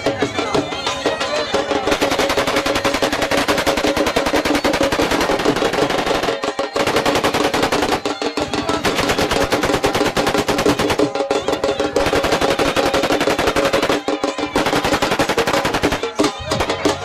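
Long bursts of rapid automatic gunfire, breaking off briefly every few seconds, over music playing underneath.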